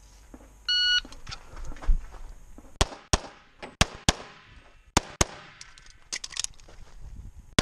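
Shot timer beeps once, about a second in, to start the stage. From about three seconds in, a .40 STI Trojan pistol fires at major power factor: three quick pairs of shots about a third of a second apart, then another shot right at the end.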